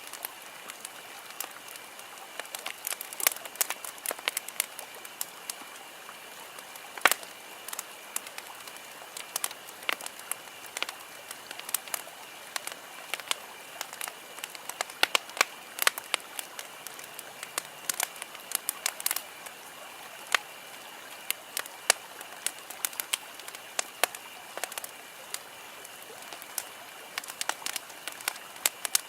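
Wood campfire crackling: many irregular sharp pops and snaps over a steady soft hiss.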